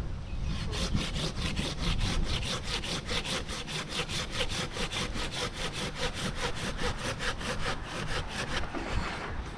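Rapid, even scraping strokes, about four a second, kept up steadily.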